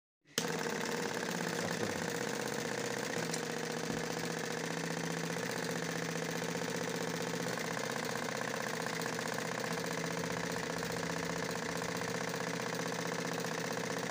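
Small DC motor switched on, starting abruptly and running steadily as it drives a syringe air pump with a fast, even mechanical rhythm, pumping air through a petrol bottle to feed a burner.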